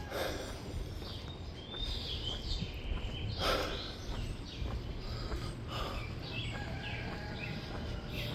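Small birds chirping on and off in short notes, over a steady low background rumble, with a few soft knocks.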